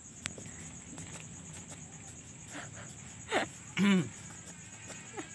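Crickets trilling steadily. Two short calls from a street cat come a little past halfway, each falling in pitch; the second is louder and is the loudest sound here.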